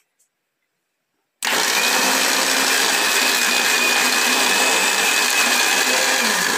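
Mondial countertop blender switched on about a second and a half in, then running steadily at full speed with a high whine over the motor as it purées jambolão (Java plum) pulp with water and sugar. Near the end its motor pitch begins to drop.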